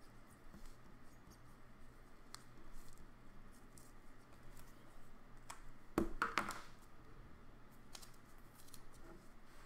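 Permanent marker scratching faintly as something is written, then hard plastic card holders clicking and clattering as they are handled, loudest about six seconds in, with another click about two seconds later.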